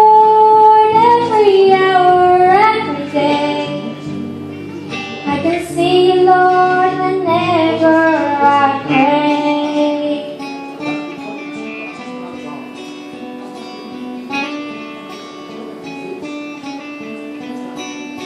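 A girl singing long held notes into a microphone over an acoustic guitar, then from about ten seconds in the acoustic guitar plays on alone, more quietly, as an instrumental interlude.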